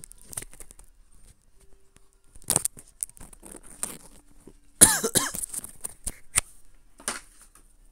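A person coughs once, the loudest sound, about five seconds in, amid scattered light clicks and taps.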